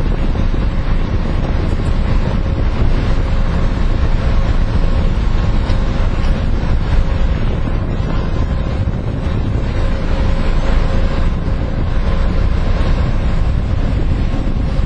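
Wind buffeting the microphone: a loud, steady low rumble, with a faint steady hum underneath.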